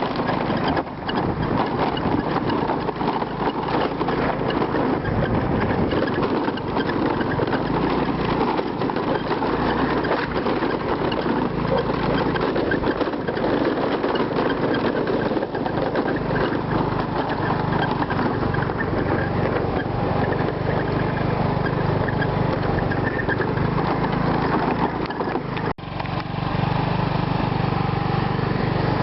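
A motor engine running steadily, with a sudden brief break near the end.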